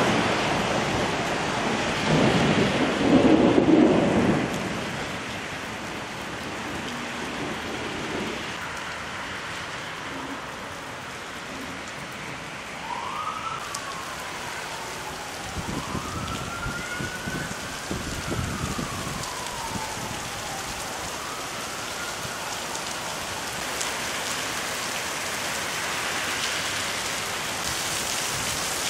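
Heavy thunderstorm rain falling steadily, with a loud rumble of thunder a few seconds in. Midway, a siren wails up and down under the rain, and the downpour grows heavier toward the end.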